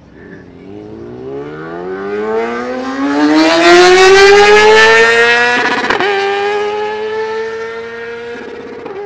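Racing vehicle engine accelerating hard, its pitch climbing steadily through a long pull, then dropping briefly at a gear change about six seconds in and again near the end. It is loudest around the middle and then fades as it pulls away.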